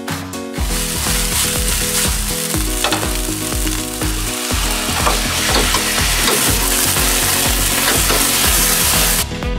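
Sliced onion, green pepper and mushrooms sizzling loudly as they fry in hot oil in a skillet, over background music. The sizzle starts about half a second in and cuts off shortly before the end.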